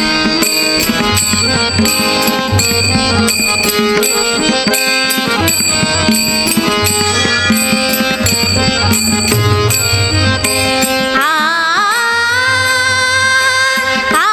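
Devotional bhajan music: held melody notes over quick, steady drum strokes and bright metallic clinks. About eleven seconds in, a sung line with wavering pitch comes in over the accompaniment.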